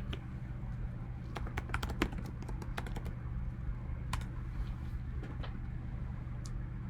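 Typing on a computer keyboard: a quick run of keystrokes from about one and a half to three seconds in, then a few single key clicks, over a steady low hum.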